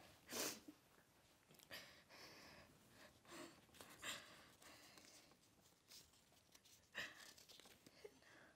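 A few short, faint rustles of a folded paper note being handled and unfolded, in near silence.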